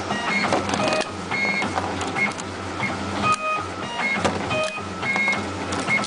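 Automatic wire stripping machine running its cycle: its feed-roller motors whir, breaking off and restarting about once a second, with clicks and short high-pitched tones as the cable is fed, cut and stripped.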